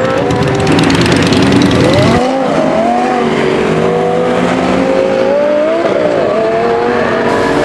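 Supercar engine revving and accelerating, its pitch climbing and dipping with throttle and gear changes. The sound changes abruptly about two seconds in.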